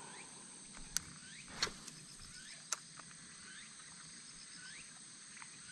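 Faint outdoor ambience: a steady high-pitched drone, a short rising chirp repeated about once a second, and three sharp clicks in the first three seconds, the middle one a duller knock.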